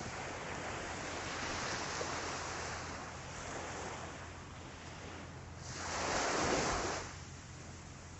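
Calm ocean surf washing onto the beach, with one wave breaking louder about six seconds in.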